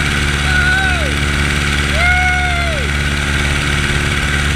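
Aircraft piston engine and propeller droning steadily in flight, with wind rushing over the microphone. Two short high tones that rise and fall come over it, about half a second in and again at two seconds.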